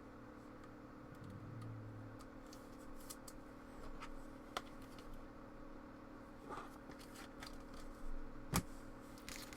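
Trading cards and packs being handled: faint rustling and small clicks, with a sharp click about halfway and another near the end, over a steady low hum.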